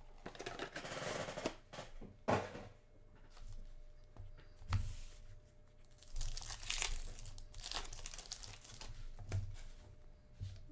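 Foil trading-card packs crinkling and sliding against each other as they are handled and dealt into stacks, with a few sharp taps as packs are set down.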